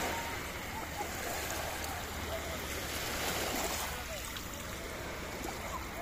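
Small sea waves washing up and swirling over the sand at the shoreline, with faint voices in the distance.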